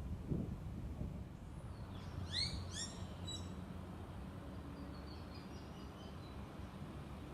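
A bird calling: a quick run of about three chirped notes about two seconds in, followed by fainter twittering, over a steady low rumble.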